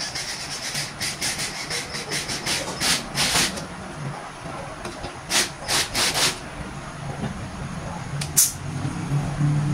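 Scattered scrapes and clicks of flat-pack furniture panels being handled and pressed together during assembly, with a longer scrape about three seconds in and a sharp click near the end.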